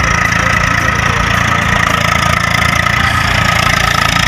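Eicher 380 tractor's diesel engine running steadily under load while pulling a seed drill through ploughed soil.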